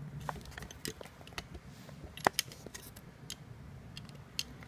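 Small plastic clicks and ticks of end-stop wire connectors being handled and pushed onto a 3D-printer controller board's header pins, with one sharper click about two seconds in.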